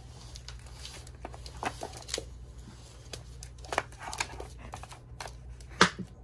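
A puppy working at a plastic nose-work puzzle feeder with its nose: irregular scrapes and clicks of the plastic lids against the board, the sharpest knock a little before the end.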